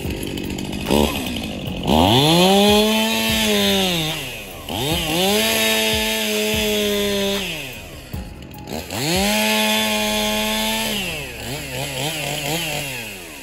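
Power saw, most likely a chainsaw, revved up to full speed three times, each run held for about two to three seconds before dropping back. Near the end it runs lower and unevenly.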